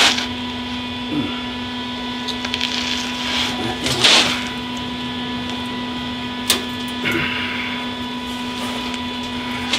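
Steady machine hum, with a few short hissing bursts and a sharp click about six and a half seconds in.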